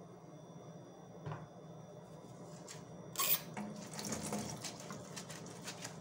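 Kitchen tap water running into a stainless steel sink, starting suddenly about three seconds in, with a sponge held and squeezed under the stream so the water splashes unevenly.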